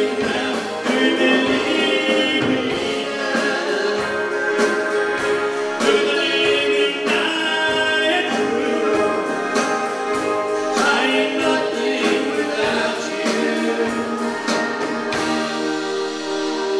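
Live country gospel band playing: drums, electric and acoustic guitars and bass.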